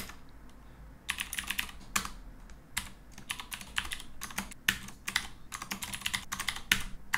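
Typing on a computer keyboard: quick runs of keystrokes with short pauses between them, starting about a second in.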